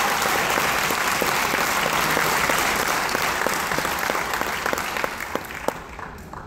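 Audience applauding, thinning out to scattered single claps near the end.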